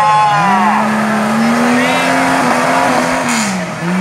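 Off-road jeep engine revving hard under full throttle while the jeep is stuck in a mud hole. The revs sag and climb back up twice, once just after the start and again near the end.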